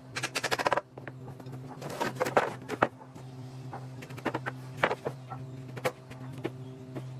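Hand woodworking sounds: a quick rattling run of short strokes about half a second in, then scattered knocks and scrapes of tools on wood. These play over steady background music with held low notes.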